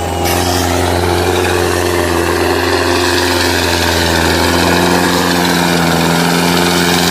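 Tractor engine sound from an RC model Preet tractor, running steadily at a low, even pitch with no change in speed.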